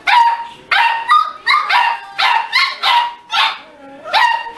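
Beagle puppies barking and yipping in a rapid, steady run of short high-pitched calls, about two a second.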